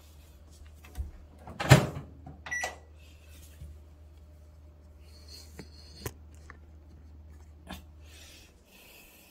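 Samsung microwave oven door being swung shut with a sharp loud knock a little under two seconds in, followed by a few lighter clicks and knocks.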